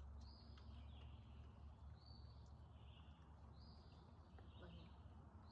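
Faint outdoor quiet with a small animal's call repeating about every second and a half to two seconds, four times: each a short high note stepping down to a lower one. Under it runs a steady low hum.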